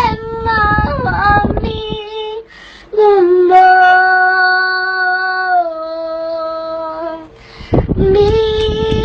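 A female voice singing a line, then holding one long note for about four seconds that steps down slightly in pitch midway, before singing on near the end.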